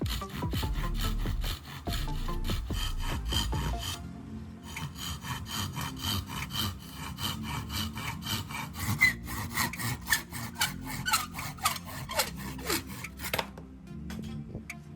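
Hand saw cutting wood in quick, regular back-and-forth strokes, with a short pause about four seconds in; the sawing stops near the end.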